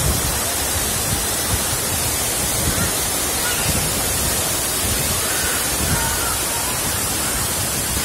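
Waterfall's water rushing in a steady, unbroken roar.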